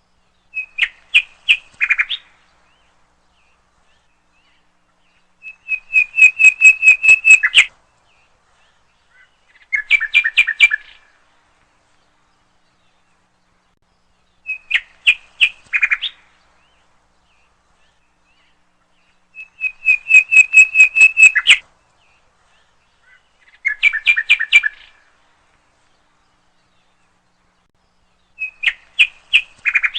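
A nightingale singing: short phrases of rapid repeated notes, each lasting one to two seconds, separated by silent pauses of a few seconds. The same three phrases come round again in the same order, twice over.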